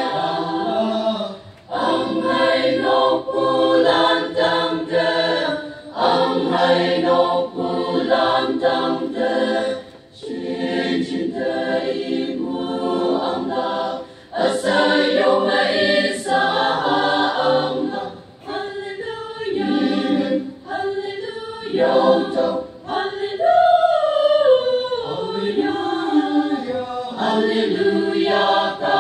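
Large mixed choir of men and women singing together under a conductor, in sung phrases separated by short breaks for breath.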